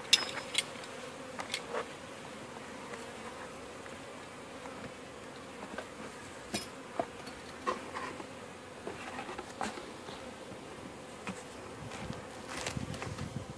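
Honeybees around an open hive making a steady buzzing hum, with scattered clicks and knocks of wooden hive parts being set in place: a sharp one just after the start and a cluster of low knocks near the end.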